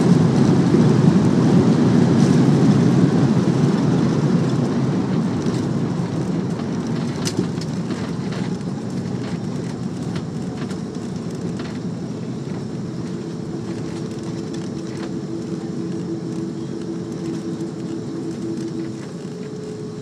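Airliner cabin noise on the landing roll just after touchdown, with the ground spoilers up: a loud rumble of engines and wheels on the runway that dies away over about ten seconds as the plane slows, leaving a quieter steady hum with a faint whine.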